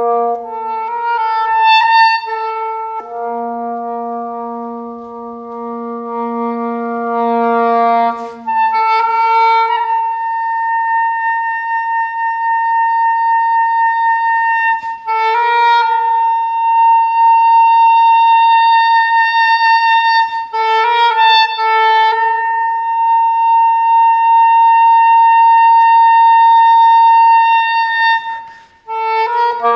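Soprano saxophone playing long held high notes, each several seconds long, broken every few seconds by short quick runs. For the first several seconds a held chord of lower notes sounds beneath it.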